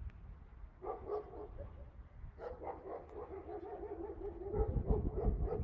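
A dog whining in drawn-out, wavering calls, a short one about a second in and a longer one from the middle onward, over low wind rumble on the microphone that swells near the end.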